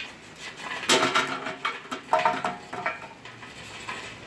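Charcoal briquettes tumbling out of a metal chimney starter and clattering onto lit coals in a kettle grill, in several bursts of hollow knocks. Fresh fuel is being added to bring the fire up to temperature.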